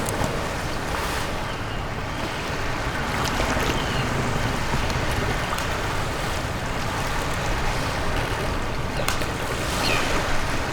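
Sea waves washing with wind blowing, a steady seashore ambience.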